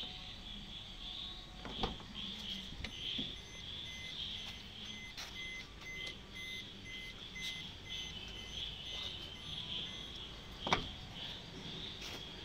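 Crickets chirping steadily at night. Two sharp clicks or knocks stand out, the louder about eleven seconds in. A faint repeating electronic beep sounds for a few seconds in the middle.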